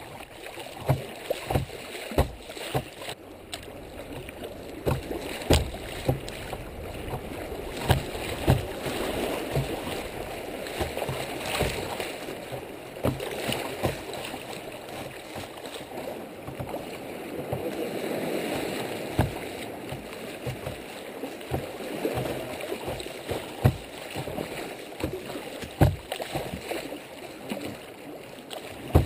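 Creek water rushing and splashing around a kayak's bow as it runs a choppy riffle, with frequent short knocks and slaps of water against the hull and camera.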